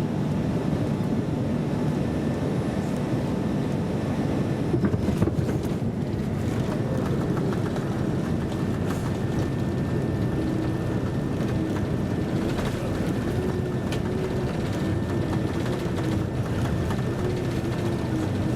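Airliner cabin noise: a steady rush of the jet engines and airflow with a thin, steady high whine, and a few brief knocks about five seconds in.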